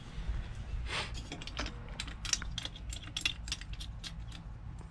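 Hand tools clicking and clinking on the exhaust mounting bolts: an irregular run of sharp metal ticks.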